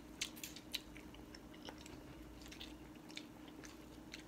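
Faint chewing of pho noodles, with a cluster of short clicks in the first second and a few more scattered after.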